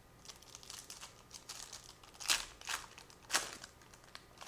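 Trading cards and their crinkly plastic packaging being handled. There is a run of rustles and swishes, and the two loudest come about two and a quarter and three and a third seconds in.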